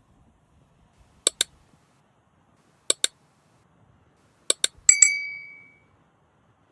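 Sharp clinks in pairs, three pairs about a second and a half apart, then a last pair whose second strike rings on as a bell-like tone, fading over nearly a second.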